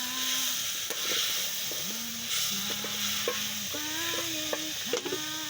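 Food sizzling as it fries, with the scattered clicks and scrapes of a utensil stirring in the pan. A tune of held notes, each about half a second to a second long, runs along with it and grows louder near the end.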